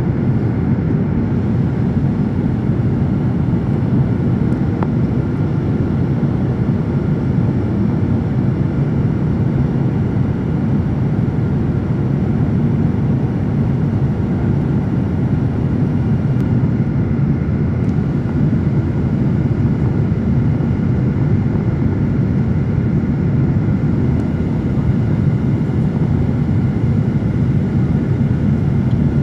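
Steady cabin noise of a jet airliner in flight: engine and airflow noise heard inside the cabin, mostly low in pitch and unchanging.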